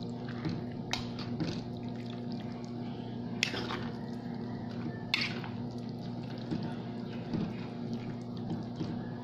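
Metal fork stirring spaghetti through tomato sauce in a pan: wet squelching, with a few sharp clinks and scrapes against the pan, over a steady low hum.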